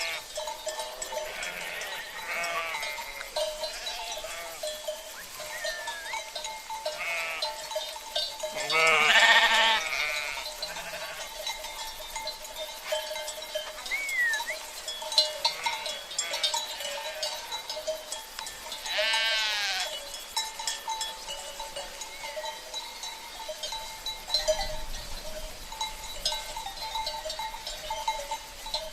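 Sheep bleating several times, the loudest call about nine seconds in and another around nineteen seconds, over a steady ringing and clinking of cowbells.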